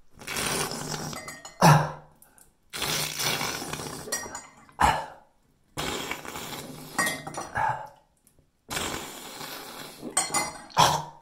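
A person sniffing salt water up one nostril from a spoon as a saline sinus rinse: four long, wet, hissing sniffs, each ending in a short, louder burst of breath.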